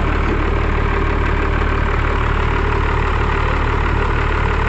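12-valve Cummins 5.9 L inline-six diesel in a Dodge Ram dually, idling steadily and evenly.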